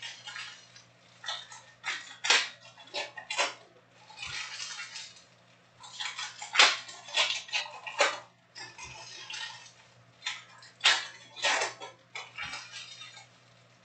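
Trading cards and foil card packs being handled: cards flicked, dropped and squared onto stacks and wrappers rustling, making a string of short sharp clicks and slaps with a few longer rustling stretches.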